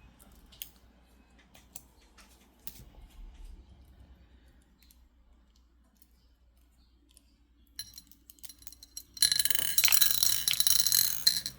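Faint scattered clicks, then about nine seconds in a loud, dense clinking of hard stone beads rattling against each other for about two seconds, as from the beads of a cut black tourmaline bracelet being handled.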